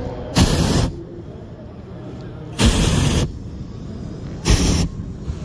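Hot air balloon's propane burner firing in three short blasts, each about half a second, with a second or two between them; the middle blast is the longest.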